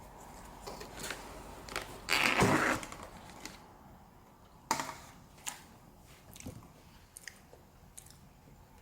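A crunching rustle lasting under a second, about two seconds in, followed by scattered light clicks and knocks.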